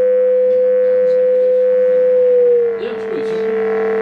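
Two steady electronic oscillator tones, a low one and a higher one, sound together. About two and a half seconds in, the higher tone slides slightly down in pitch and a brighter, buzzier layer of overtones joins. These are the signals driving a home-made computer-controlled XY oscilloscope display, and the pitch change reshapes the Lissajous figure on screen.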